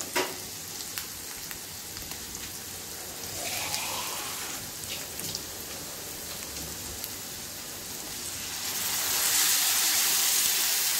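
Brinjal and potato pieces sizzling in hot oil in a nonstick pan. About eight seconds in, water is poured in from a steel cup and the sizzle turns louder and hissier as the water hits the hot oil.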